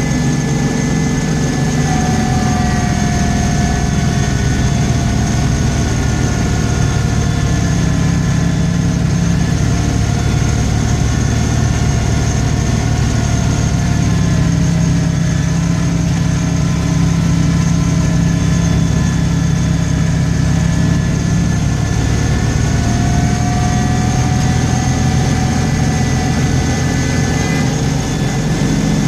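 A vehicle engine running steadily, with a whine over it that sags slightly in pitch and comes back up near the end.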